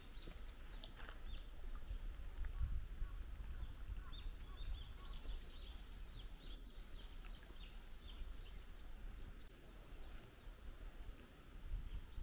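Wild birds chirping and singing, a busy run of short high calls through the middle, over a steady low rumble.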